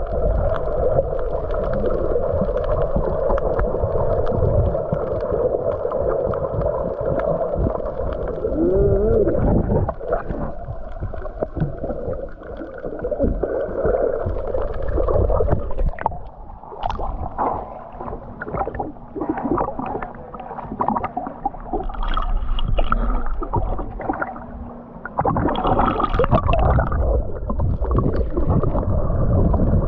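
Muffled water gurgling and sloshing. It is steady for the first ten seconds or so, turns broken and uneven with small splashy clicks, and evens out again near the end.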